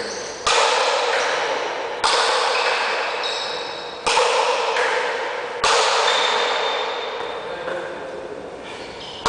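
A pelota paleta rally: four sharp cracks of the paddle and ball striking, about one every two seconds, each ringing out in a long echo in an enclosed court.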